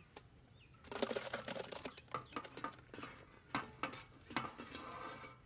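Diced raw beef sliding off a steel tray into a large metal pot: a dense wet patter of chunks landing about a second in, then a few separate slaps and knocks as the last pieces are swept off the tray by hand.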